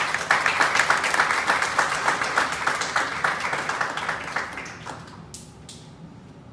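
Audience applauding, a dense patter of many hands clapping that fades and dies away about five seconds in.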